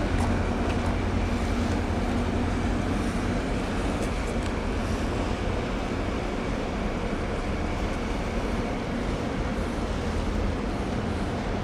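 Steady low rumble of ship engines, with water wash and wind noise.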